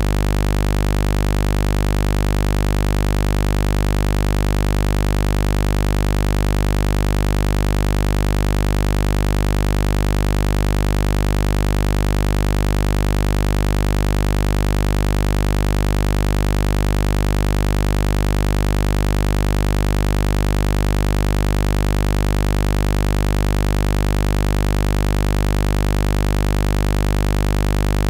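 Heavy buzz sound effect: a loud, low, steady buzz, rich in overtones, that holds unchanged throughout.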